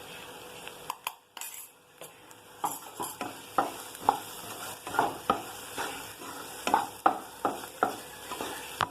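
Soaked moong dal frying in oil in a pan and being stirred and scraped with a cooking spoon, in short repeated strokes about two a second from about two and a half seconds in, over a faint sizzle.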